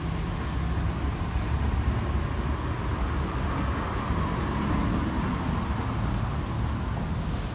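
Steady low outdoor rumble, swelling a little about three to six seconds in.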